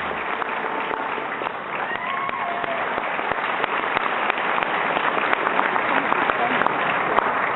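Audience applause: many people clapping steadily, with voices mixed in.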